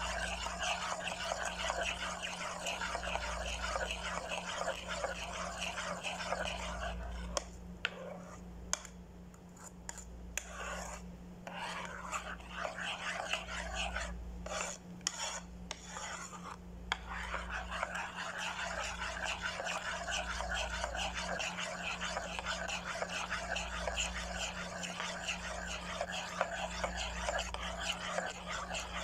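A metal spoon, then a wire whisk, stirring thin cornstarch batter in a non-stick saucepan: rapid, continuous rasping scrapes against the pan's bottom. The stirring stops for several seconds in the middle, with a few sharp clicks, then resumes.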